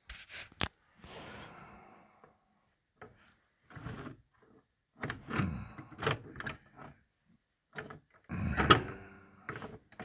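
Clicks, knocks and scrapes of metal parts being handled inside a snowblower's chassis as a jammed bearing on the drive shaft is worked loose. A few sharp clicks come near the start, then scattered bursts of rubbing and knocking, the loudest near the end.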